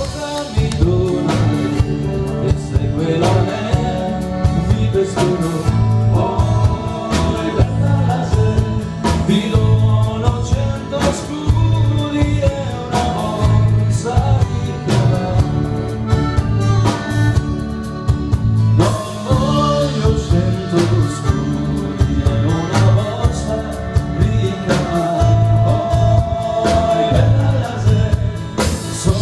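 Live band music: a man singing over accordion, guitars and drums, with a steady bass beat.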